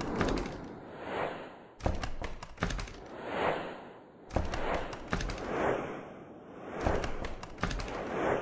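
Slideshow intro sound effects: whooshes that swell and fade about every two seconds, cut through by sharp hits with a deep thud, several of them in pairs.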